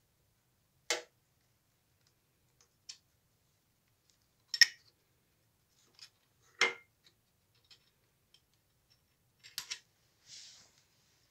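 Irregular sharp metal clinks and knocks, about five in all, from engine parts and tools being handled on the bench during an engine teardown, with a short rustle near the end.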